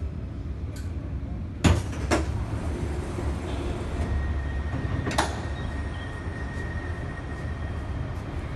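Bus engine idling with a low rumble as the passenger doors open, with two sharp clunks about two seconds in. Another clunk comes about five seconds in, and a faint steady high tone starts about four seconds in.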